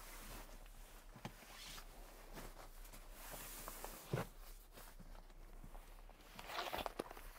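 Faint rustling of fabric and soft knocks as an old foam mattress is rolled up and pulled across the floor of a rooftop tent, with one louder thump about four seconds in and a stretch of rustling near the end.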